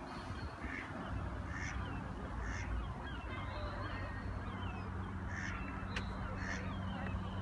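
Birds calling: a short call repeated roughly once a second, over the thin twittering of small songbirds.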